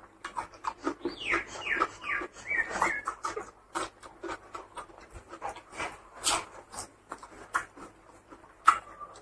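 Close-up, wet open-mouthed chewing and lip-smacking while eating rice and curry by hand, with many short sharp smacks. Between about one and three seconds in comes a run of short, falling squeaky sounds.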